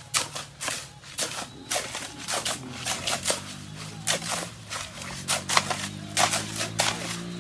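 Many sharp, irregular taps and knocks, several a second, over a low steady hum that grows louder from about halfway through.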